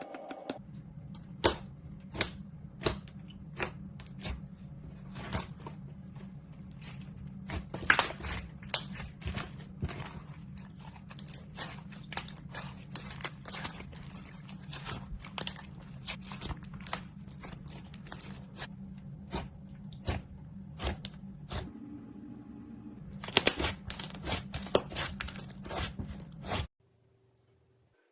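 Slime being kneaded and squeezed with clay mixed in, making irregular sharp clicks and pops that come in a denser flurry near the end, over a steady low hum. It cuts off suddenly shortly before the end.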